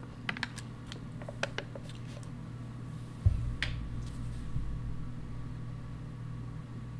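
Horror-film sound at moderate level: a steady low drone with a few small clicks in the first two seconds, then a sudden low thud about three seconds in that leaves a deeper rumble under the drone.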